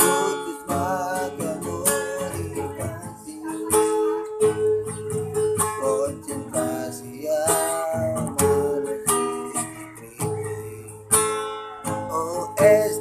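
A song played on strummed acoustic guitar, with some singing.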